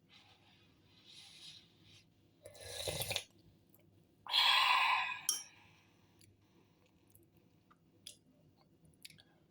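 A person eating herbal fish soup close to the microphone, with chewing and mouth sounds. There are two louder noisy sips about two and a half and four and a half seconds in, the second the loudest, and a few small sharp clicks near the end.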